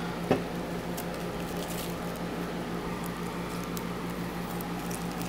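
Protective plastic film being peeled off a new keyboard: faint crackling and rustling with a sharper click about a third of a second in, over a steady low hum.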